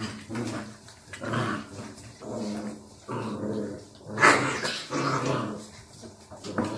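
Barbet dogs growling in play: a string of growls, each about half a second to a second long, with one louder, harsher outburst a little after four seconds in.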